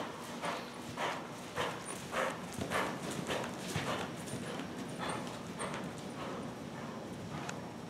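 A horse's hoofbeats in a steady canter rhythm on soft arena footing, a little under two strides a second, growing fainter about halfway through as the horse moves away.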